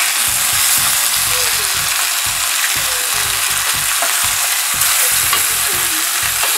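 Skin-on chicken leg and thigh pieces sizzling steadily as they brown in their own fat in an enamel pot. Frequent low knocks come from tongs moving and turning the pieces in the pot.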